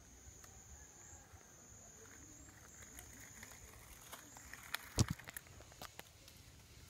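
Faint, steady high-pitched insect buzz, with a few soft crackles and one sharper click about five seconds in.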